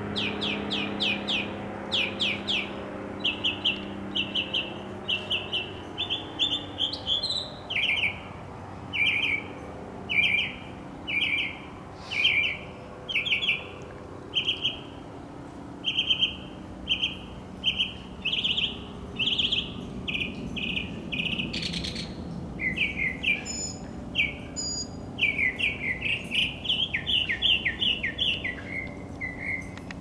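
A small songbird singing a long run of short, high chirps in quick groups of two to four notes, repeated about once a second. The notes drop a little lower in pitch after several seconds and come faster near the end.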